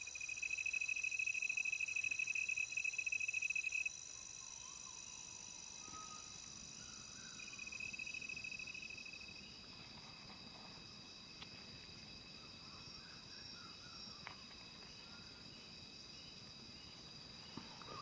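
Tropical forest insect chorus: several steady high-pitched insect calls, with a louder, fast-pulsed cricket-like trill for the first four seconds that returns briefly about eight seconds in.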